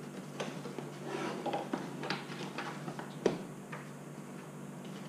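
A cardboard box being opened and handled: the lid slid off and lifted, with light taps and rustles of the packaging and one sharper knock a little past three seconds in.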